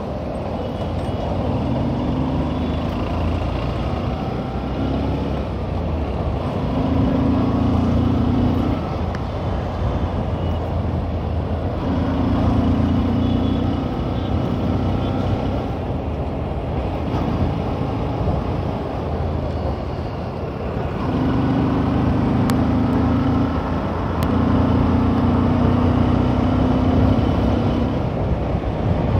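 Bajaj CT 125X motorcycle's single-cylinder engine running under way, its note coming up and easing off in stretches of a few seconds as the throttle opens and closes. Steady road and traffic noise underneath.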